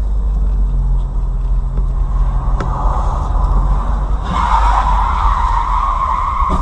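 Car driving, heard from inside the cabin through a dashcam microphone: a steady low rumble of engine and road with a low engine hum. A louder rushing noise comes in about four seconds in and holds.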